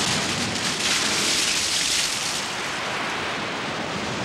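Sea surf breaking on a rocky, sandy shore. A wave crashes and hisses, loudest from about a second in, then eases off as the water washes back.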